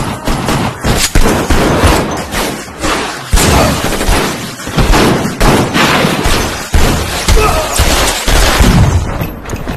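Film shootout: rapid gunfire, shot after shot with hardly a pause, thick with heavy impacts.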